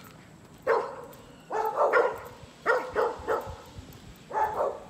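A dog barking in about four short bouts of one to several barks each, spread across a few seconds.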